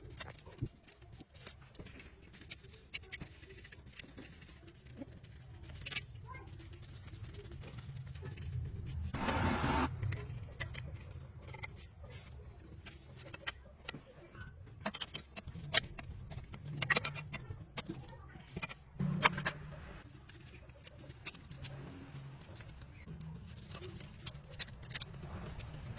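Scattered sharp metal clicks and knocks of repair work, with a brief noisy burst about nine seconds in, over a low steady hum.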